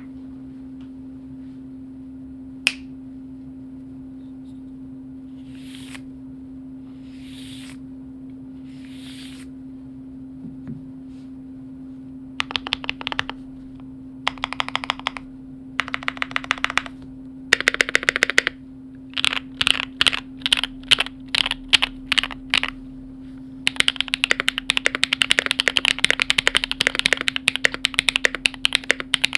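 Keychron Q2 custom mechanical keyboard with Tungsten switches, FR4 plate and GMK keycaps being typed on. There is a single sharp click near the start, then a few soft swishes. From about twelve seconds in come short bursts of key presses and separate strokes, then fast continuous typing over the last five seconds, with a steady low hum underneath.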